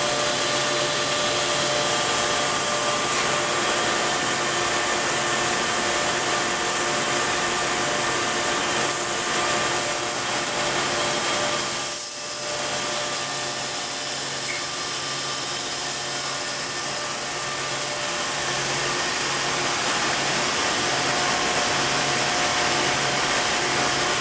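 Plastic bag factory machinery running: blown-film extrusion and printing machines give a steady, loud hiss with several even hums layered under it. The noise dips briefly about halfway through.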